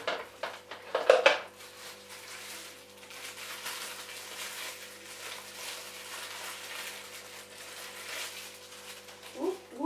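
Kitchen utensils clattering against each other and their holder, loudest about a second in, then the crinkle and rustle of plastic wrapping as wrapped tongs are handled. Near the end, a brief pitched call that rises and falls.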